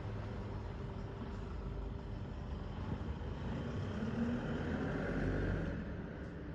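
Road traffic: a steady low rumble, with a passing vehicle swelling louder about four seconds in and fading away near the end.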